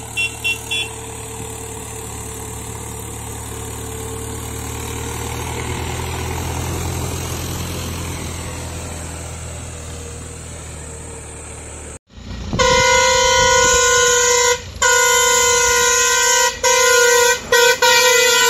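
A loaded heavy vehicle's diesel engine labouring up a grade: a steady low drone that swells and fades, with a quick run of short high beeps at the very start. About 12 seconds in, after a sudden change, a tipper truck's loud multi-tone horn blows in long blasts broken by a few short gaps.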